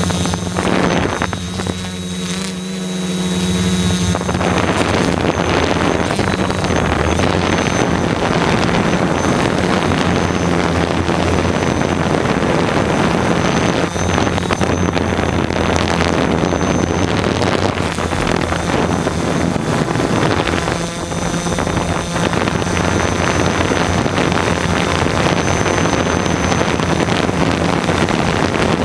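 DJI F450 quadcopter's four electric motors and propellers running steadily in flight, with a rush of propeller wash and wind over the microphone. Steady motor tones are clearest at first; about four seconds in, the rushing air gets louder and stays so.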